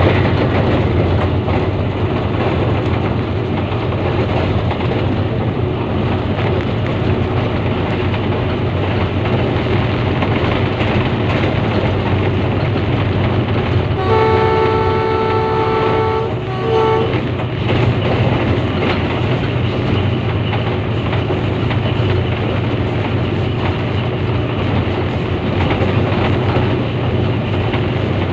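Locomotive running at speed along the track, heard from its front end as a steady loud rumble. About halfway through, its horn sounds one long blast of about two seconds, followed by a short toot.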